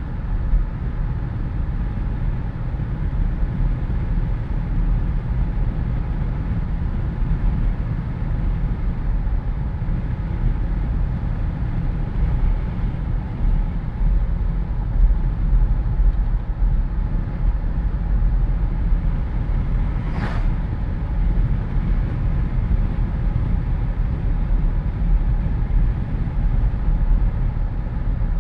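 Jeep Wrangler driving with the windows down: steady wind buffeting and road noise over a deep, low rumble. There is a single brief click about two-thirds of the way through.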